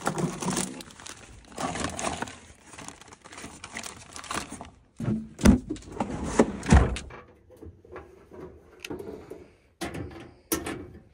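Rustling and clattering as a Coleman two-burner propane stove is taken out and set up. A stretch of rustling is followed by two heavy thumps as the stove is handled, then a few sharp clicks near the end as a propane cylinder is fitted to the stove's regulator.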